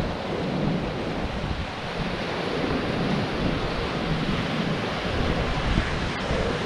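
Surf breaking and washing on a pebble shore, with wind buffeting the microphone.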